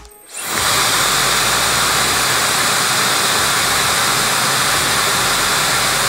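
Laifen Swift brushless high-speed hair dryer switched on at high speed: its air rush comes up within about half a second of starting and then runs steady and even.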